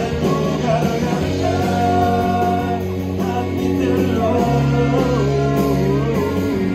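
Live rock band playing: a singer holds long notes over electric guitars and bass.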